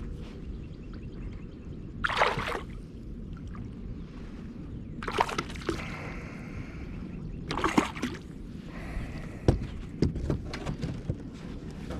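Water sloshing and splashing at a kayak's side in three short bursts a few seconds apart, then a few sharp knocks against the hull near the end, over a steady low rumble.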